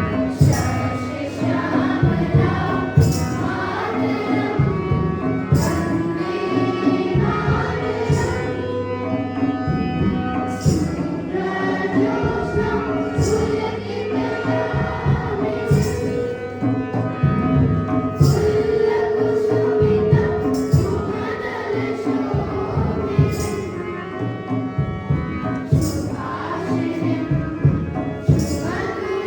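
Music with a held melodic line over a steady rhythm of hand percussion and bright jingling strikes.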